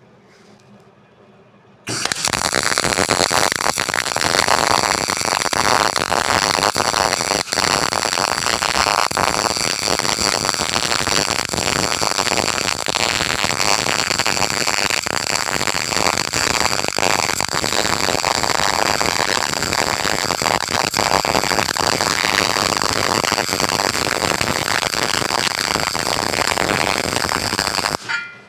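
Stick welding arc crackling and sizzling steadily, an overhead weld on a T-joint run with a triangular weave of the rod. The arc strikes about two seconds in and cuts off sharply just before the end.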